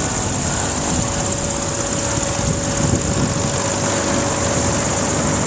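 Steady loud rush of air buffeting the microphone as a Mondial Turbine thrill ride spins, with a faint steady hum of the ride's machinery underneath.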